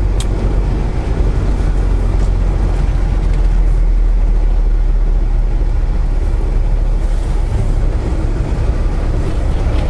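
Semi truck's diesel engine running with a steady low drone, heard from inside the cab.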